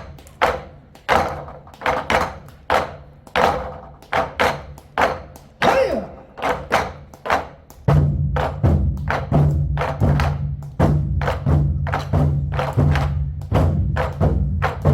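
A Korean drum ensemble beating large buk barrel drums in rhythm, with sharp accented strikes and short gaps between groups. About halfway through, a low sustained backing track comes in and the drumming gets denser.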